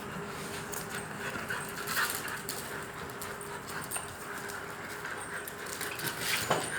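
A Rottweiler making dog sounds while at play, with scattered short clicks and knocks, a louder one about two seconds in and another near the end.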